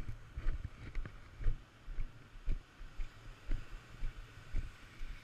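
Muffled knocks about twice a second, from a boogie-board-mounted camera being jostled as the board moves through shallow whitewater, over a steady hiss of surf and wind on the microphone.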